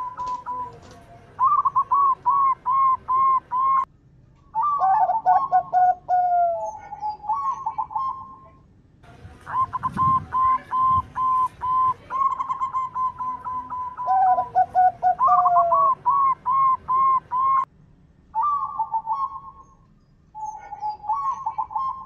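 Zebra dove (perkutut) song: runs of quick, evenly spaced coos around one pitch, some phrases stepping down to lower coos. Several phrases follow one another with short pauses between them.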